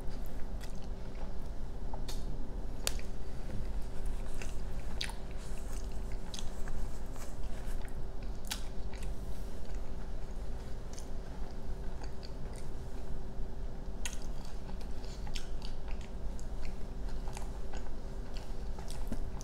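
Close-miked chewing of a mouthful of food, with many short wet mouth clicks and smacks scattered throughout.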